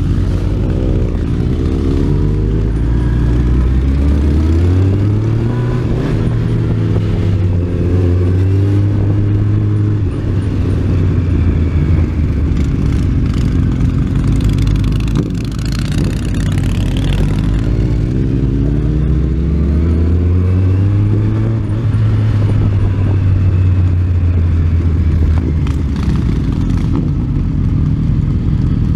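Motorcycle engine heard from on board while riding, over steady road and wind noise. The engine note rises twice as the bike accelerates, about four seconds in and again around nineteen seconds in, holds, then eases off.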